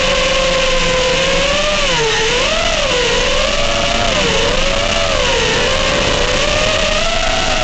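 FPV quadcopter's motors and propellers whining steadily, the pitch dipping and rising again and again with throttle changes.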